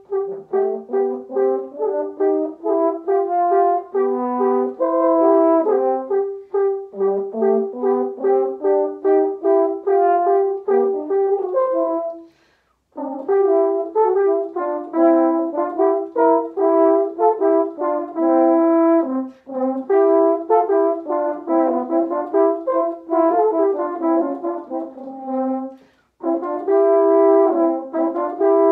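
Two French horns playing a quick duet étude, a fast run of short detached notes, with two brief breaks, about twelve seconds in and again near the end.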